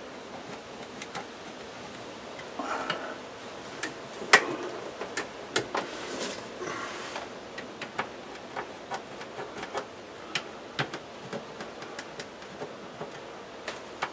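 Scattered light clicks and taps from a plastic under-cabinet light fixture and its wires being handled, with a sharper click about four seconds in and two short spells of rustling.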